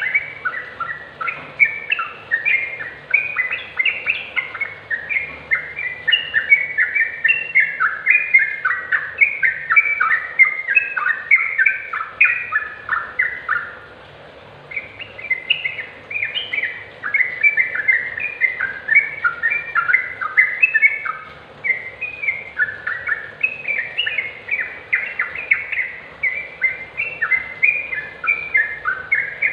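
Yellow-vented bulbul singing: a fast, continuous chatter of short bubbly notes, with a brief pause about halfway through.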